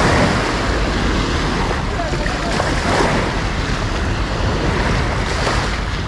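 Sea waves washing onto the beach, with wind buffeting the microphone, and faint voices of people in the background.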